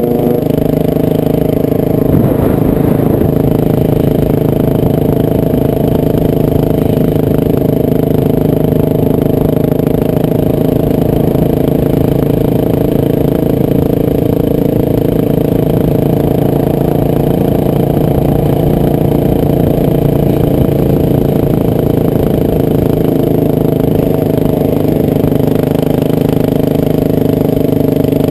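Motorcycle engine running loudly at one steady pitch, with no revving up or down.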